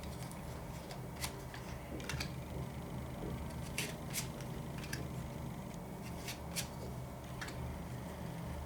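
A deck of fortune-telling cards being handled and shuffled: a few soft, irregular flicks and clicks of the cards, over a low steady hum.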